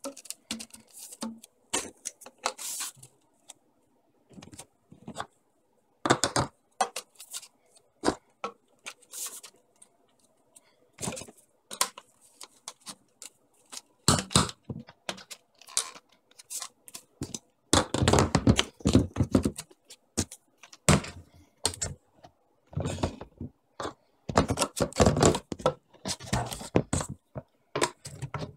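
White 3/4 inch PVC pipe lengths being pushed into tees and elbows and handled by hand during a dry fit: irregular plastic clicks, knocks and scraping, with longer, louder stretches of rubbing and knocking a little past the middle and again near the end.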